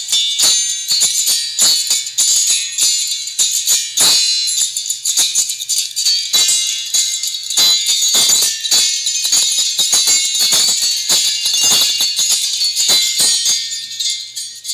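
A pair of B² Audio Rage H1-Neo neodymium horn tweeters with 1-inch voice coils playing music on their own, reproducing only the top end: a thin, super-high-frequency sound of cymbal and percussion hits with almost no midrange or bass.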